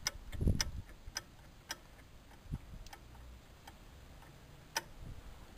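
Light metallic clicks and taps from the governor linkage of an old stationary petrol engine being worked by hand, about two a second at first, then fewer, with a couple of soft thumps.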